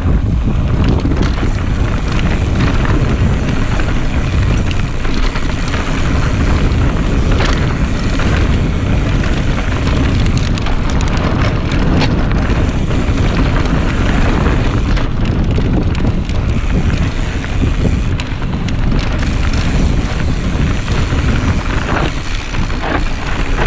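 Wind buffeting the microphone of a mountain bike's on-board camera during a fast descent, over the rumble of knobby tyres on rock and dirt, with small rattles and knocks from the bike over rough ground.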